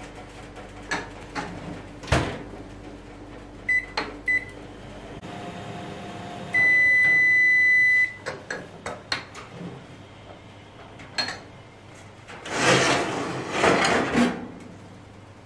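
Home oven: the door knocks shut, the control panel gives a few short beeps, then one long beep lasting over a second, the end-of-baking signal. Near the end the oven door is opened and the metal baking tray scrapes and clatters as it is slid out of the oven.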